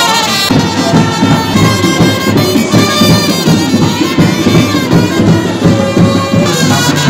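Brass band music: horns and reeds playing a sustained melody over a busy low accompaniment.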